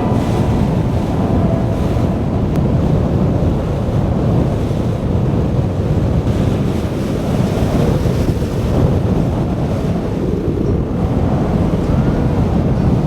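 Wind buffeting the microphone on a small tour boat under way: a loud, steady, low rumble with water noise beneath.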